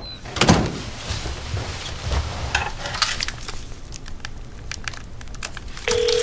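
Scattered rustling and clicking from handling a mobile phone and a slip of paper. Near the end a steady telephone tone starts on the handset as the call goes through.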